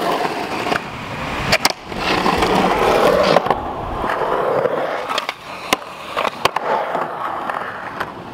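Skateboard wheels rolling on smooth concrete, with a grind along a ledge near the start and several sharp clacks of the board's tail and trucks on pops and landings.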